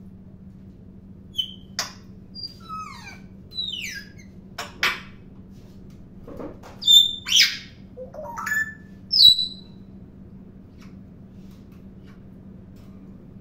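African grey parrot whistling and chirping: a run of short chirps and falling whistles, the loudest a little past the middle.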